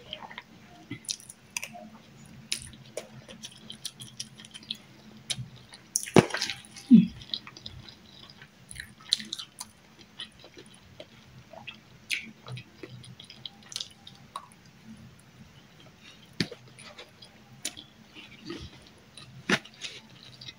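Eating sounds from a person eating rice with a fork: wet chewing and mouth clicks, with the occasional fork tap on the food container. The clicks are scattered and irregular, loudest about six to seven seconds in.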